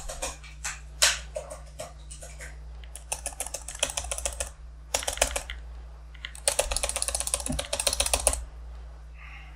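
Typing on an HP laptop keyboard: a few scattered keystrokes, then quick bursts of key clicks with short pauses between, the longest run just before the typing stops near the end. A steady low hum underneath.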